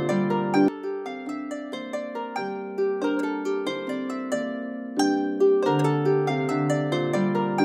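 Background instrumental music: a melody of plucked, harp-like notes, several a second, over lower plucked notes, with a new phrase starting about five seconds in.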